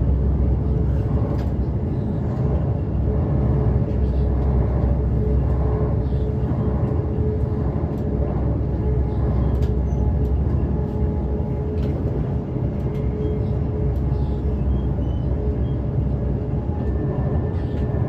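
Inside a moving electric passenger train: steady low rumble of the carriage running on the track, with a steady hum and a few faint clicks.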